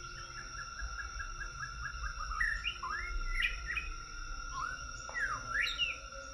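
Forest birds singing: a quick run of repeated chirps, then rising and falling whistled notes, over a steady high-pitched insect drone.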